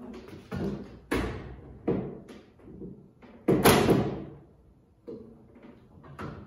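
Steel tool-cabinet drawer being pushed and pulled on its metal slide rails while it is being seated onto the slides: a series of metal clunks and rattles, the loudest about three and a half seconds in, with a short ring after it.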